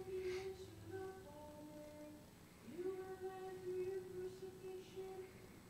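A single voice singing slow, chant-like held notes, with a rising glide into a long sustained note about midway through: a cantor singing the Gospel acclamation at Mass.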